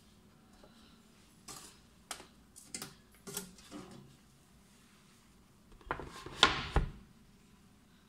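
Kitchen handling knocks on a glass board: a few light taps and clatters, then a louder clatter about six seconds in as the bamboo tray carrying the black dessert mold is set down.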